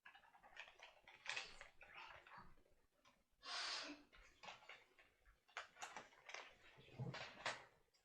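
Faint, irregular clicks and knocks from small objects being handled, with a short rustle about three and a half seconds in.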